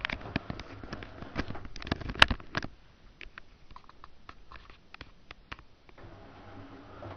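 Small electric turret drive rotating the model's rear gun turret through a Plexiglas pinion and internal ring gear, giving a low hum with irregular clicking and ticking. It runs for the first two or three seconds, leaves only scattered clicks for a few seconds, then starts up again near the end.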